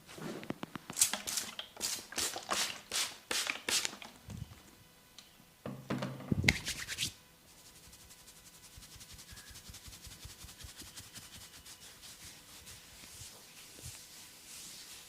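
Hands massaging oiled skin: a run of quick strokes about three a second, a louder stroke a few seconds later, then faint, rapid, steady rubbing.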